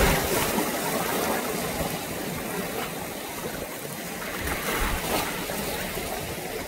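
Choppy sea water washing and lapping, a steady wash with louder surges at the start and about five seconds in.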